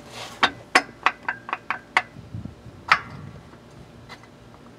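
Sharp metal clicks and knocks as a coolant pipe to the oil cooler is wiggled and worked out of a tight fit against the engine's brackets and fittings. About a dozen taps come in quick, uneven succession over the first three seconds, then it goes quieter.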